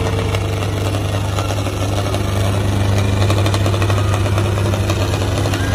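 Two farm tractors' diesel engines running hard under heavy load as they pull against each other in a tochan tug-of-war: a deep steady drone with a rapid clatter, growing louder about two seconds in.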